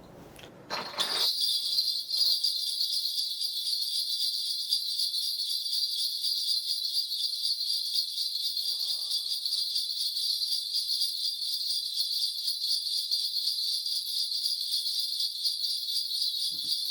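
A cluster of small metal bells, a Korean shaman's ritual bells, shaken steadily and continuously, starting about a second in.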